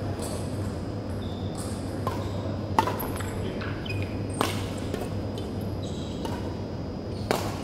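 Badminton rally: rackets striking the shuttlecock with sharp, echoing smacks. The loudest hits come about three seconds in, around four and a half seconds and near the end, with fainter hits between them. Shoes squeak briefly on the wooden court, over a steady low hum.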